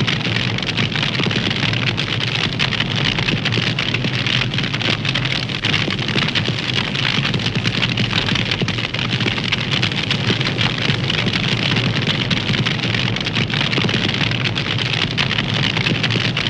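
Cartoon fire sound effect: a steady hiss of burning flames dense with fine crackles, holding even throughout.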